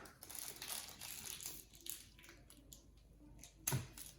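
Faint crinkling and small clicks of toy packaging being handled and opened, with one sharper click about three and a half seconds in.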